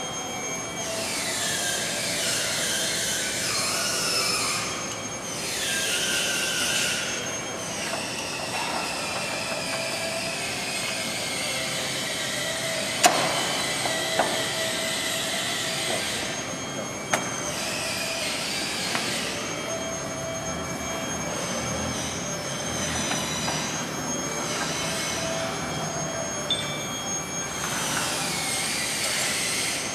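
Metal-on-metal squealing at a guillotine paper cutter during knife installation: several high screeches that each slide down in pitch over two or three seconds, with a few sharp metallic clicks.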